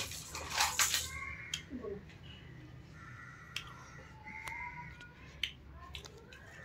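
Sharp clicks and taps of spoons and forks against plates and steel bowls during a meal, with a brief rustle about half a second in. A few faint high chirps sound now and then.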